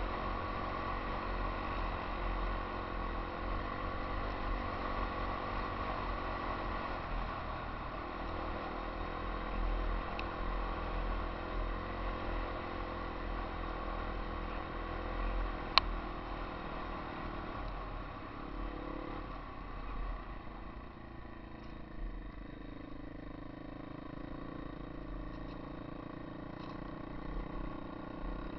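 Yamaha XT 250 single-cylinder four-stroke trail bike engine running steadily while under way, heard from a helmet-mounted camera. There is one sharp click about sixteen seconds in, and the engine is quieter over the last third.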